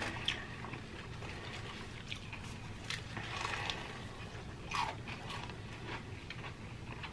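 People biting and chewing crispy fried chicken close to the microphone: scattered short crunches and mouth clicks over a quiet room.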